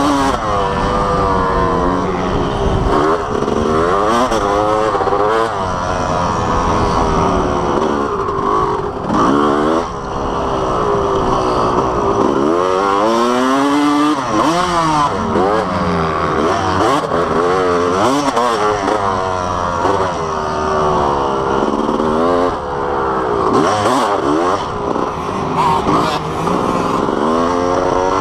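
Dirt bike engine ridden hard around a motocross track, heard close from on board: the pitch climbs and drops again and again as the rider accelerates, shifts and backs off.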